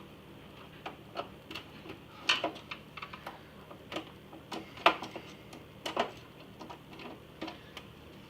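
Irregular small clicks and taps of a screwdriver working screws out of an iMac G3's plastic casing.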